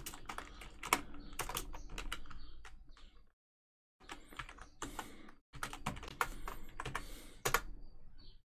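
Typing on a computer keyboard: a quick, irregular run of key clicks, stopping briefly about three seconds in before going on.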